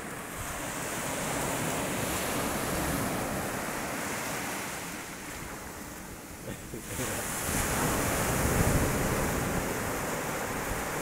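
Small surf breaking and washing up the sand at the water's edge, with wind buffeting the phone's microphone. The wash grows louder about seven seconds in.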